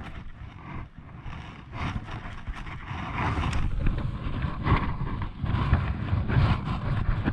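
Wind buffeting the camera's microphone as a low, uneven rumble, with scattered knocks and rustles from handling the rod and moving about the kayak.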